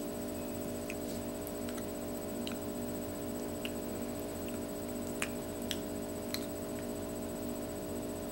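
Quiet room tone: a steady electrical hum of several fixed tones over hiss, with faint scattered clicks.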